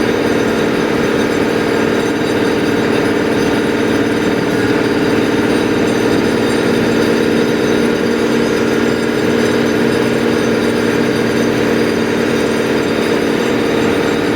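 A heavy engine running steadily at a constant speed, with an even droning hum.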